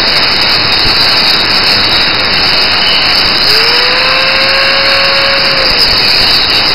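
Angle grinder cutting metal: loud continuous grinding with a steady high motor whine. About halfway through, a ringing tone rises and holds for about two seconds.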